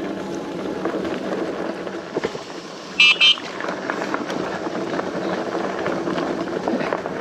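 Mokwheel Upland Plus e-bike's electric horn giving two short beeps about three seconds in, over the steady rumble and hum of the fat-tire e-bike riding along a dirt trail.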